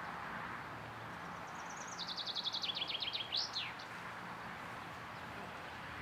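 A small songbird sings one short song, a quick series of high clear notes stepping down in pitch and ending in a brief flourish, about two seconds in, over steady outdoor background noise.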